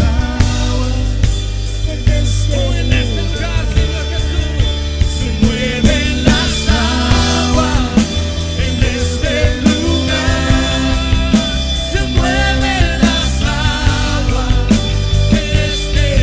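Live worship band playing rock-style music: drum kit keeping a steady beat under electric guitars, bass and keyboard, with a wavering lead melody on top.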